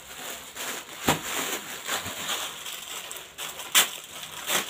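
Clothes being handled: fabric rustling and crinkling as a dress is moved and spread out, with a few sharp clicks, about a second in, near four seconds and just before the end.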